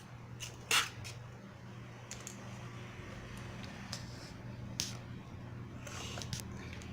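A few light clicks and knocks of small plastic pots and supplies being handled, the loudest a little under a second in, over a steady low hum.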